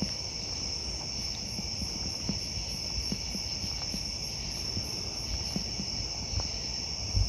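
Crickets chirping in a steady, continuous high trill, with a second, faster pulsing insect call above it and a few soft low knocks.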